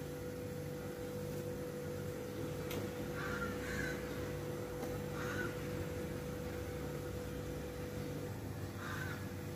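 A bird calling a few short times, over a steady background hum.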